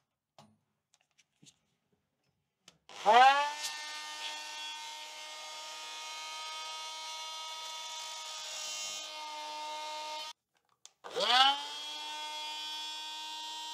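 Handheld rotary tool spinning up with a rising whine about three seconds in, then running at a steady high pitch while cutting a notch in the corner of a trap door frame. It stops at about ten seconds and spins up again a second later.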